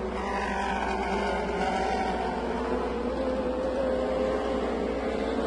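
Lightning sprint car engines (600cc motorcycle engines) running at slow caution-lap pace, steady and droning. A car passing close has its pitch slide down over the first two seconds.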